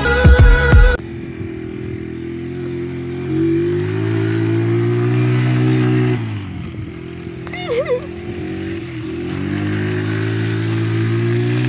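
Small youth quad (ATV) engine revving as it drives through mud. The pitch climbs and holds, drops about six seconds in, then climbs and holds again. Intro music cuts off about a second in.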